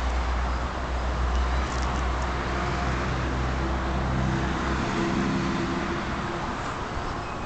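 Caterpillar 320 hydraulic excavator's diesel engine running, with a steady low drone that drops away about five seconds in; higher humming tones come in about three seconds in and fade again near six seconds.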